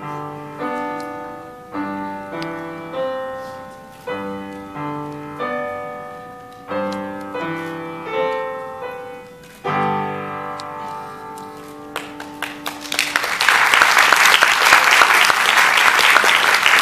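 Yamaha upright piano played four hands: slow, separate chords and notes, the last chord left to ring about ten seconds in. Audience applause starts about twelve seconds in and quickly grows loud.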